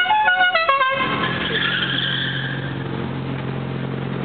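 A car's musical horn plays a quick run of stepped notes that ends about a second in, followed by a car engine running steadily.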